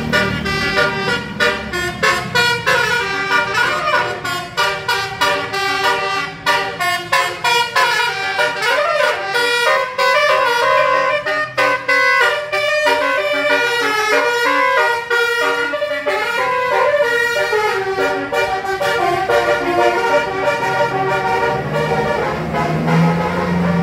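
A bus's basuri telolet horn, a multi-trumpet musical air horn, playing a long melody of quickly changing notes. A heavy engine rumble rises and falls beneath it near the start and again near the end.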